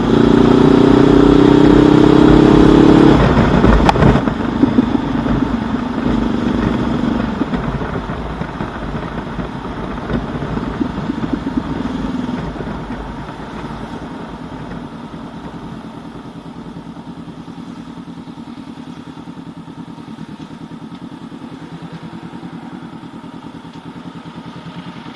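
2019 Honda CB500X's parallel-twin engine through a Mivv Suono aftermarket muffler, pulling hard for about three seconds, then backing off. The exhaust note fades over the next ten seconds and settles to steady, quieter low-rev running.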